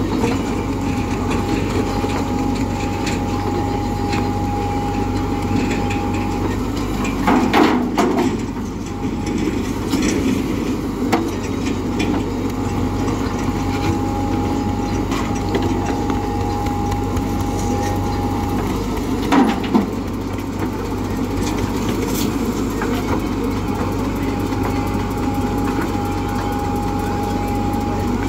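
JCB 3DX Xtra backhoe loader's diesel engine running steadily under load while the backhoe digs. A steady whine comes and goes in long stretches, and there are two louder clattering bursts about twelve seconds apart as the bucket and arm work the soil.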